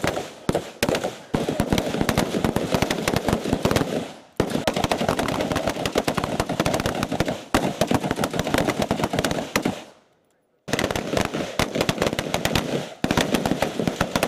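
Several M16A4 5.56 mm service rifles firing at once: a dense, continuous stream of overlapping shots that breaks off briefly about ten seconds in and then starts again.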